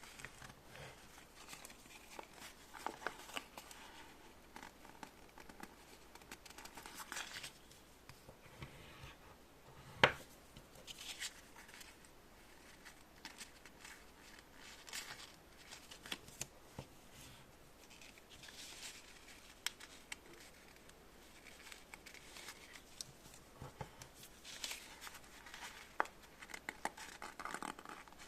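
Small objects handled close by: irregular rustling and crinkling with scattered light clicks, and one sharp, much louder click about ten seconds in.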